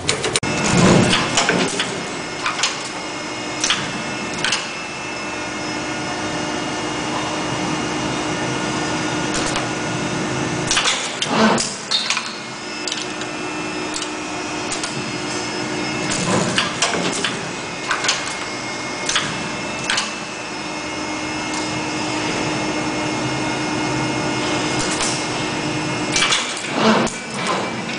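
CNC wire bending machines running: a steady motor hum and whine, broken every few seconds by irregular clacks and knocks as the bending heads move and form the wire.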